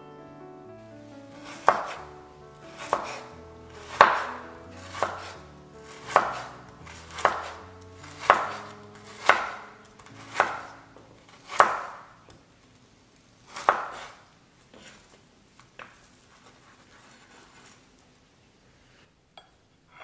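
Chef's knife slicing through a fish cake and striking a bamboo cutting board, about one cut a second, in a run of a dozen sharp knocks. The last few cuts are fainter.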